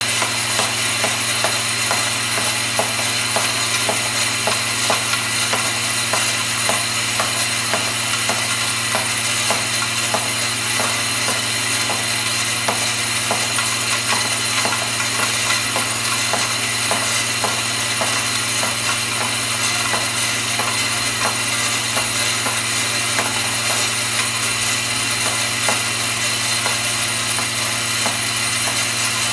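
G60T vibratory bowl feeder running: its drive gives a steady low hum while small metal rings rattle and clatter continuously as they are shaken up the spiral track and out along the feed rail.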